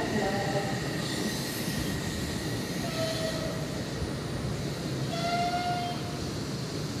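Odakyu electric commuter train pulling into the platform and slowing to a stop, a steady rolling rumble with a couple of brief squealing tones, the second about five seconds in, as it brakes.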